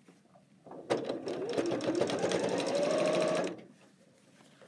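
Janome sewing machine stitching for about two and a half seconds, a fast even clatter of needle strokes with the motor whine rising a little in pitch, then stopping about a second before the end. It is running a top stitch along the edge of a cotton bag.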